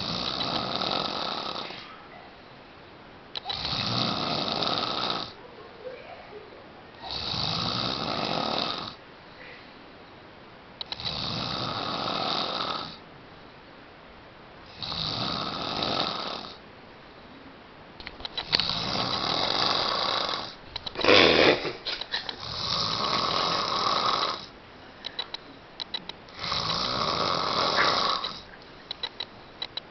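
Loud, rhythmic snoring: one snore about every three to four seconds, each lasting a second or two, with a short, louder snort a little past the middle.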